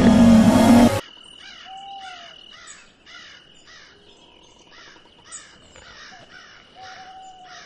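A loud pitched cry cuts off sharply about a second in, giving way to quiet night ambience: animal calls, which the tagger takes for crow caws, repeat about twice a second over a faint steady high tone, with two short mid-pitched tones that rise and fall.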